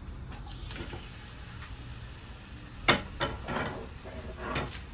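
Marinated chicken pieces tipped from a bowl into a hot oiled frying pan: a sharp knock about three seconds in, then short bursts of sizzling as the pieces hit the oil.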